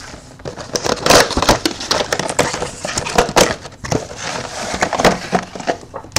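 Sealed trading-card packs and their cardboard box being handled: irregular rustling and crinkling of pack wrappers with scrapes and light knocks as the packs are pulled out and set down on the table.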